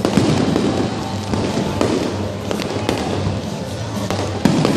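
Aerial fireworks shells bursting: a run of sharp bangs and crackling over a steady rumbling haze, with one especially loud bang near the end.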